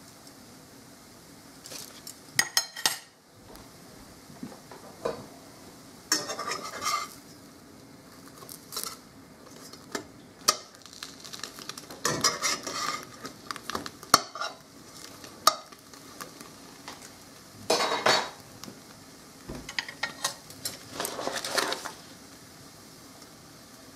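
Metal spatula scraping and clinking against a stainless steel frying pan in several short bursts as slices of French toast are turned, over a faint steady sizzle.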